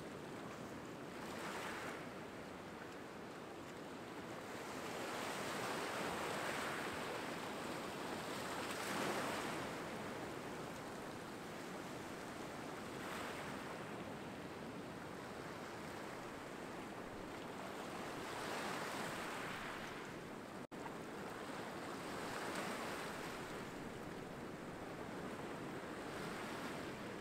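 Small ocean waves breaking over rocks and washing up a sandy beach, the surf swelling and easing every four to five seconds.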